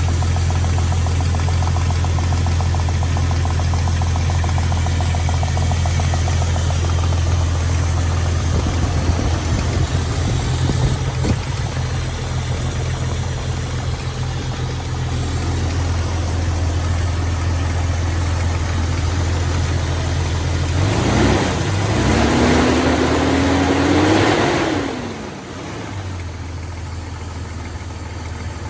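Recently rebuilt Jeep XJ 4.6 stroker straight-six idling with a slap/knock noise. About three-quarters of the way through it is revved up briefly and falls back to a slightly quieter idle.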